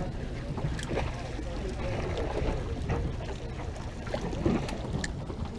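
Steady low rumble of a charter boat, with wind on the microphone and a few scattered clicks and taps.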